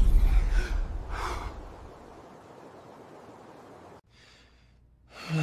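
A low rumble with a few short breathy vocal outbursts that die away over the first two seconds. After a cut, a man takes a breath and starts a heavy, weary sigh near the end.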